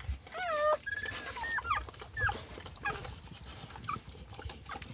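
Newborn Brittany puppies squeaking in a string of short, high, wavering cries. The longest and loudest comes about half a second in, and brief squeaks follow irregularly.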